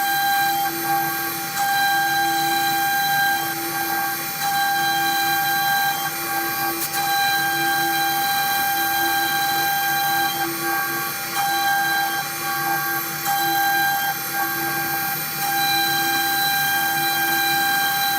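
A CNC router running a test job, its motors whining with several steady high-pitched tones. Some of the tones cut out and come back every second or two as the machine moves and pauses.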